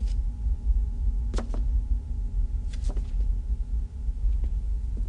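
Film soundtrack ambience: a steady low rumble with a faint steady tone over it, broken by a handful of short sharp clicks, two of them close together about a second and a half in.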